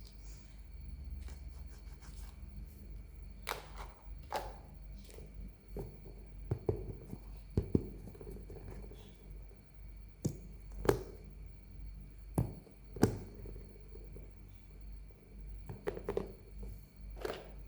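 Hands handling a toy: irregular taps, clicks and knocks, a dozen or so, with the loudest knocks about eight, eleven and thirteen seconds in.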